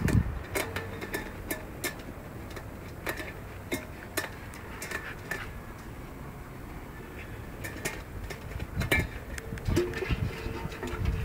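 Scattered clinks and knocks of a metal dog bowl being bumped and pushed about by playing German Shepherd puppies.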